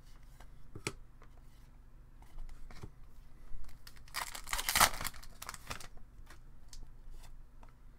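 Trading cards being handled and flipped, with a few light clicks. From about four to six seconds in comes a loud crinkling, tearing rustle of card packaging.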